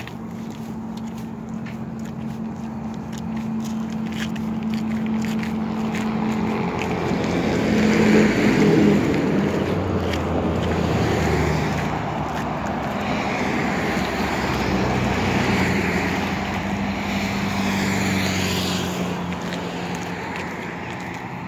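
Cars passing on a road beside the path, one after another, swelling to their loudest about eight seconds in and again around fifteen seconds, then fading. Footsteps crunch on gravel in the first few seconds.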